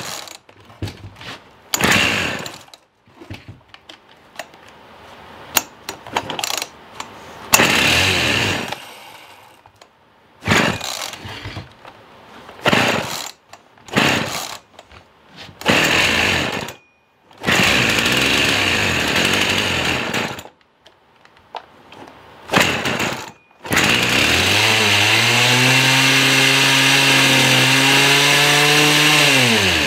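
Husqvarna 50 Rancher two-stroke chainsaw being pull-started again and again, the engine firing in short bursts and dying. About 24 seconds in it catches and runs steadily for about six seconds, then winds down and stops. The carburetor still needs fine-tuning, according to the owner.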